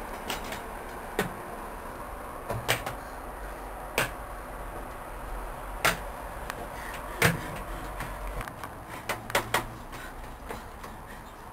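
Hands slapping and knocking on a house wall and a wooden front door: sharp single knocks every second or two, then a quick run of four or five knocks near the end. A low steady rumble underneath stops about eight seconds in.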